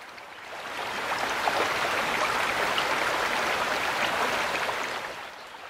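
Garden fountain splashing, a steady rush of falling water that swells up about half a second in and fades away near the end.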